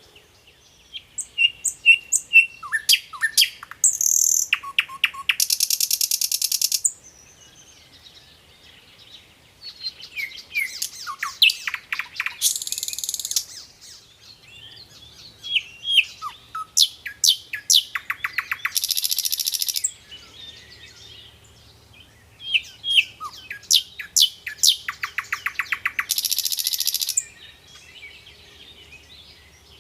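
A sikatan londo flycatcher singing four phrases with short pauses between them. Each phrase starts with quick high chips and falling whistled notes and ends in a loud, fast, buzzy trill lasting a couple of seconds.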